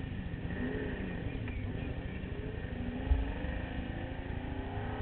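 Motorcycle engine running at a standstill, its pitch rising steadily over the last couple of seconds as it revs up. A single thump about three seconds in.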